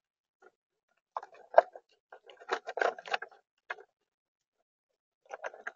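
Eastern gray squirrel rummaging through a plastic tub of acorns, the nuts and shells clicking and rattling against each other. A run of clatter comes from about a second in to past three seconds, and a short burst comes near the end.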